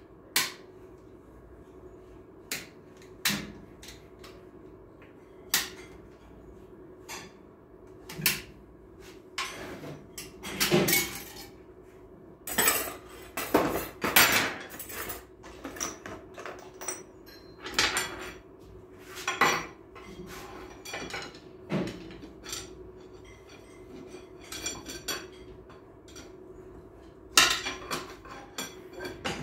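Metal parts of an A442F automatic transmission clinking and clanking as it is dismantled by hand: scattered sharp knocks, busiest through the middle, with one loud clank near the end. A faint steady hum runs underneath.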